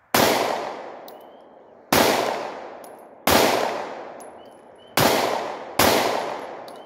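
Glock 43 9mm pistol fired in slow, deliberate single shots: five shots one to two seconds apart and a sixth right at the end, each report echoing and dying away over about a second. None of the shots brings the ring of a hit on the steel target.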